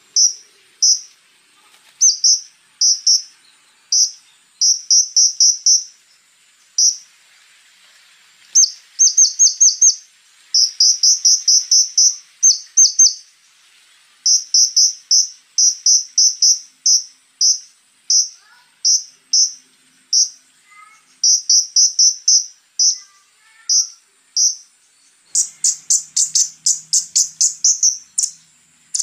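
Konin (flowerpecker) singing: short, sharp, high-pitched notes fired in quick runs of several a second, broken by brief pauses. Near the end comes a faster, harsher run of notes.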